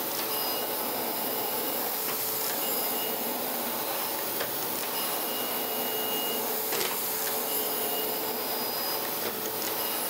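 Surface grinder's abrasive wheel grinding across the steel top of a magnetic chuck, a steady hiss over the running spindle, on a very light finishing pass. Faint thin tones come and go as the wheel crosses the chuck.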